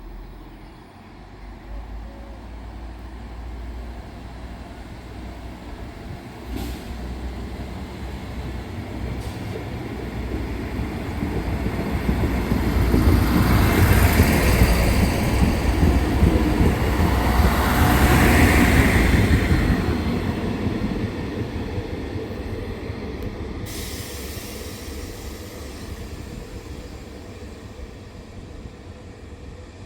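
A train passing by, its wheels rumbling on the rails: the sound builds steadily, is loudest a little past the middle, and then fades away.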